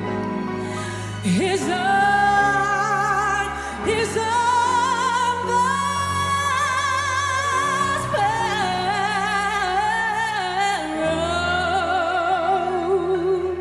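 A woman singing solo into a microphone over backing music, holding long notes with a wide vibrato and sliding between pitches as she belts.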